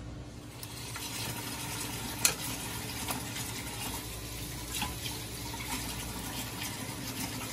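Kitchen tap running water into the sink while cherry tomatoes are rinsed under it, with a few light knocks, the sharpest about two seconds in.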